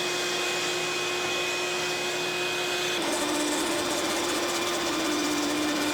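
CNC router's trim-router spindle running steadily with a high whine as it cuts, its pitch shifting slightly about three seconds in.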